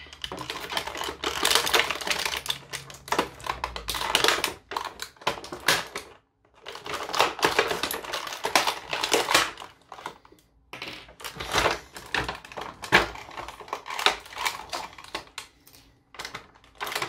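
Clear plastic blister packaging crinkling and crackling as it is handled and pulled apart, in runs of rapid clicks with a few short pauses.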